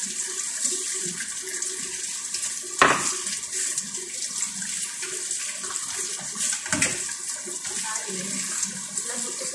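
A fork scrapes and taps on a plate while peeling the skin off grilled eggplant, with two sharp clinks, about three seconds in and again near seven seconds, over a steady background hiss.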